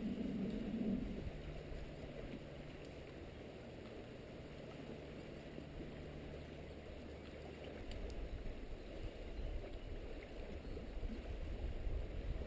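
Steady rush of a river running high after heavy rain. A low rumble comes in about two-thirds of the way through.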